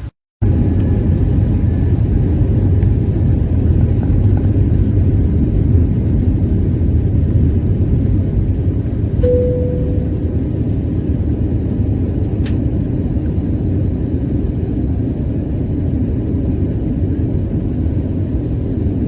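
Steady airliner cabin noise: a loud, low engine and airflow rumble heard from inside the passenger cabin in flight. About halfway through, a single short tone sounds and fades.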